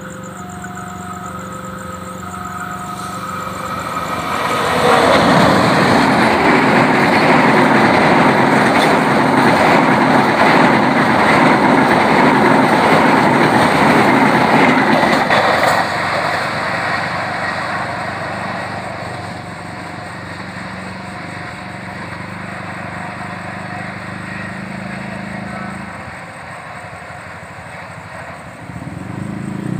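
A diesel-hauled passenger train approaching and passing close by: its drone builds, then a loud rush of wheels and coaches on the rails runs from about five seconds in to about sixteen seconds and fades away. A two-tone level-crossing warning alarm beeps before the train arrives and again after it has passed.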